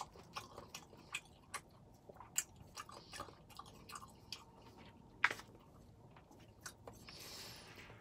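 A person chewing a mouthful of pad thai noodles, heard close up through a clip-on microphone: soft wet mouth smacks and clicks. There is a sharper click about five seconds in and a short hiss near the end.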